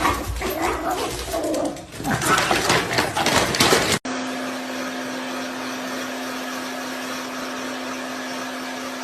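A dog vocalizing over scuffling noise for about four seconds. After an abrupt cut, a steady hum with a single constant tone and hiss, typical of a small motor running.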